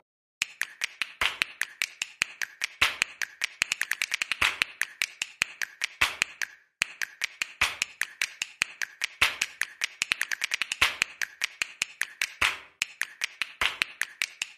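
A small dog's claws clicking rapidly and unevenly on a hardwood floor as it trots and runs, with a brief pause about six and a half seconds in.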